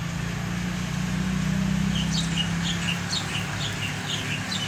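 A small bird chirping: a run of short, high notes about three a second, starting about two seconds in, over a steady low hum.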